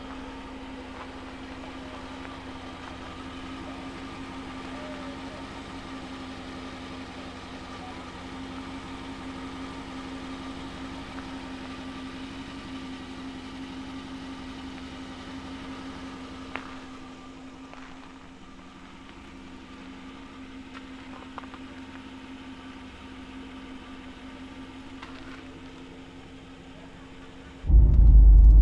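Jeep Wrangler engine running steadily, a constant hum at one pitch. Near the end, a much louder low rumble cuts in suddenly.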